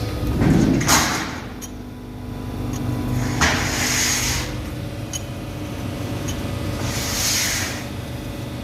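Industrial metal-rolling machine running with a steady low hum, broken by short bursts of hiss about every three seconds.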